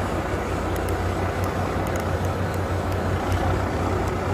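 A boat's engine running steadily with a low hum, under a wash of noise.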